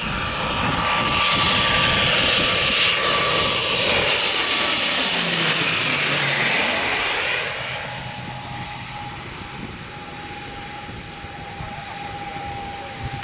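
ATR 72 twin-turboprop airliner on final approach flying low overhead, its engine and propeller whine building to a loud peak and dropping in pitch as it passes, then fading as it heads toward the runway.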